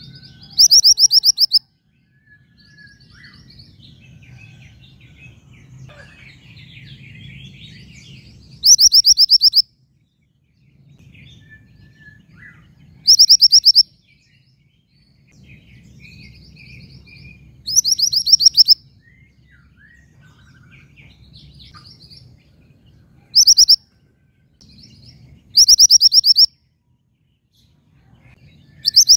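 Female mantenan gunung songbird calling for a male. It gives a loud, fast, high trill about a second long, seven times at gaps of a few seconds, with faint softer chirps between and a low hum underneath.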